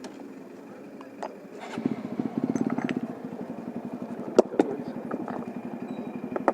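Single-cylinder engine of a TVS Apache motorcycle picking up with a rapid, even thumping about two seconds in, loudest for a second and then running steadily. A couple of sharp knocks stand out a little past the middle.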